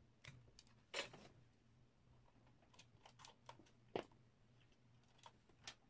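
Faint clicks and snips of small wire-cutting pliers stripping insulation off a thin wire, with a louder snip about a second in and a sharp click about four seconds in.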